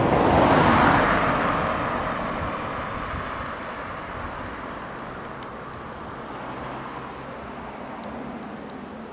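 A car passing close by on the road, loudest about a second in and then fading away, leaving a low steady road noise.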